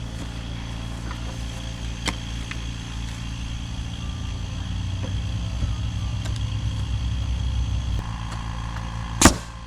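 Small engine, likely a portable generator, running steadily; it works harder for a few seconds mid-way, then eases off. A single sharp click comes near the end.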